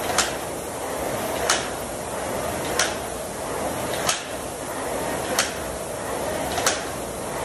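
SMAI air rowing machine being rowed hard: its fan flywheel gives a steady whoosh, with a sharp click once each stroke, about every 1.3 seconds.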